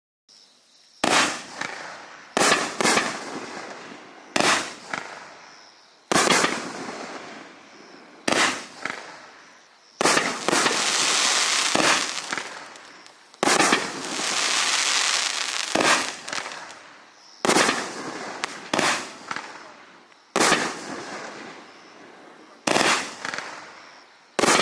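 Raccoon Fireworks 'Hoppy Boom' 500-gram cake firing its 16 shots from 1.5-inch tubes, one after another. Each shot is a sharp bang followed by a fading hiss, with several coming in quick pairs and two longer hissing stretches about halfway through.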